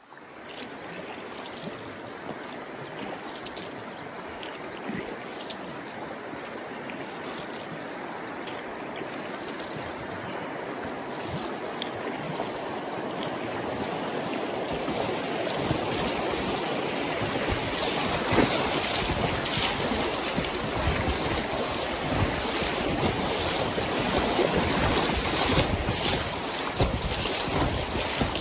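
Rushing creek water, an even wash of noise that grows steadily louder, with wind buffeting the microphone.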